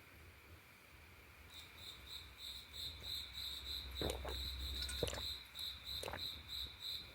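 Crickets chirping in an even train of short high-pitched pulses, about four a second, starting about a second and a half in. A few faint knocks sound about four, five and six seconds in.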